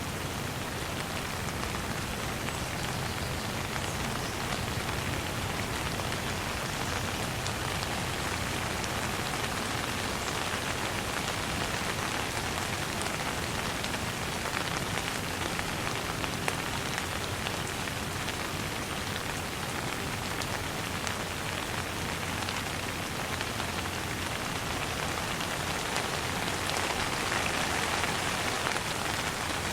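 Steady light rain falling, a continuous even hiss with faint drop ticks, growing slightly louder near the end.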